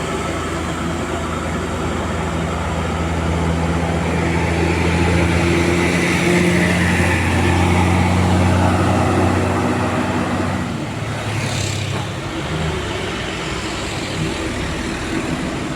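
Diesel engine of a bus pulling up an uphill grade, a steady low drone that grows louder as it passes and fades after about ten seconds, with a brief hiss shortly after.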